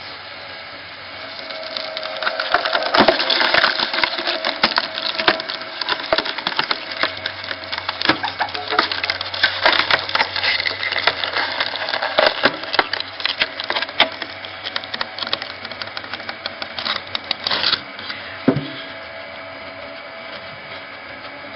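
Screw-cone log splitter driving its spinning cone into a large log round: dense cracking and splintering of the wood as it is forced apart, over a steady machine hum. The cracking stops about three-quarters of the way in, leaving only the hum.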